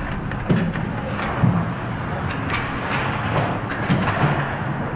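Ice hockey play: skate blades scraping and carving the ice, with sticks clacking and a couple of sharper knocks about half a second in and again about a second later.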